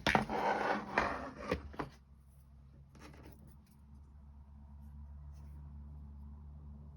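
Rustling with a few sharp clicks for about two seconds as small wooden kit parts are handled, then a steady low hum.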